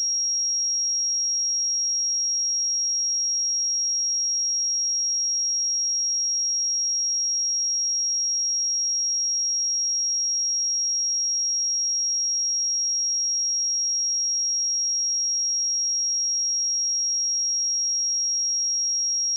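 A pure 5612 Hz sine-wave test tone: one steady, high-pitched tone held at a constant level, used to check speakers and headphones.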